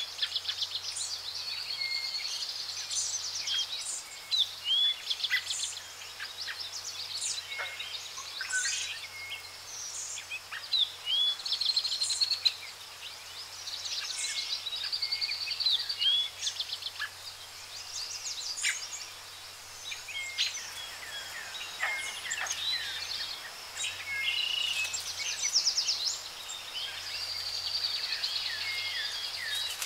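Several birds calling and singing together: a busy run of short chirps, rapid trills and slurred whistles.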